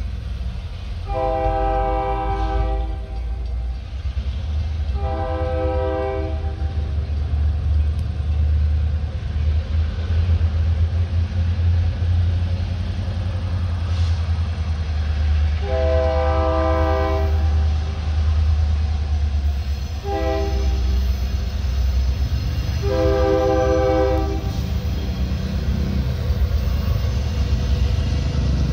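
Diesel locomotive's multi-tone air horn sounding five blasts: two long, then after a long pause long, short, long, in the pattern of a grade-crossing warning. A steady low rumble of the train runs beneath.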